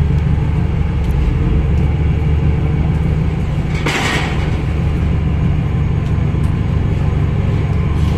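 Low, steady drone of a docked ferry's diesel engines idling, with a brief hiss about four seconds in.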